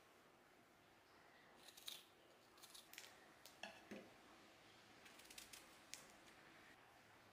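Very faint crisp clicks and crackles, scattered in small clusters through the middle: fingers handling cut wax apple slices over a plate.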